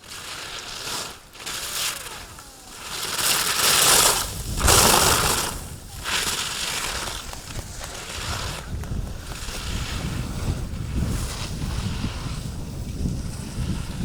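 Ski edges scraping and hissing over hard-packed snow in a series of loud slalom-turn bursts, the loudest about four to five seconds in, then low wind noise buffeting the microphone.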